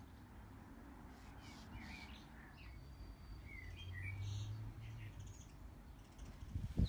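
Faint outdoor ambience with birds chirping now and then in short high chirps. A low hum swells briefly about four seconds in.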